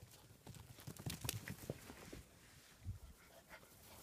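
German Shepherd puppies' paws pattering and scuffling on concrete: irregular clicks with a few low thumps.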